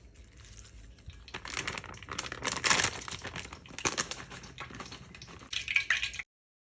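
Hands mixing and rubbing raw sliced chicken with seasoning and olive oil: irregular crinkly rustling with small clicks, which cuts off abruptly near the end.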